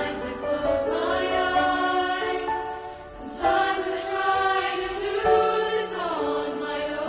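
Choir singing slow, sustained chords, moving from one held chord to the next, with a brief break about three seconds in.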